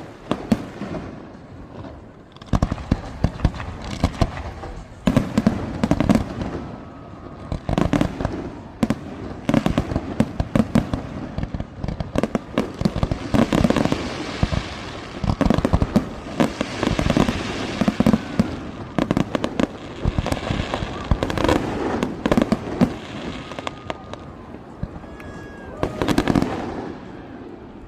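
Aerial fireworks bursting in quick succession: many sharp booms, some stretches of crackle, starting about two and a half seconds in and thinning out near the end.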